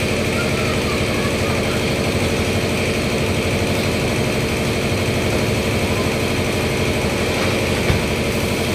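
A machine running steadily with a fast, even pulse and no change in speed. A single sharp knock comes near the end.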